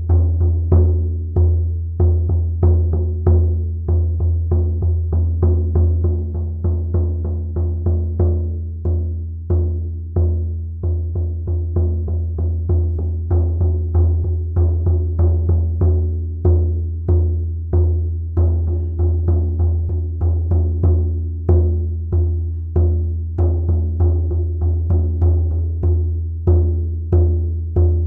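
20-inch oval goat-skin shaman frame drum struck steadily with a soft sound-healing beater, about two beats a second. Each stroke is a deep booming tone that rings on into the next.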